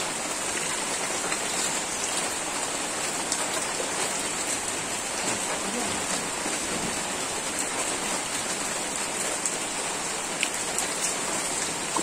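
Steady rain falling, a continuous even hiss with a few faint drip ticks.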